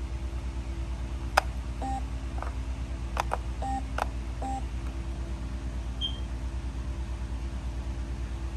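Kidde P4010ACS smoke alarm giving three short, mid-pitched beeps and, about six seconds in, one brief high chirp. A few sharp clicks fall among the beeps, over a steady low hum.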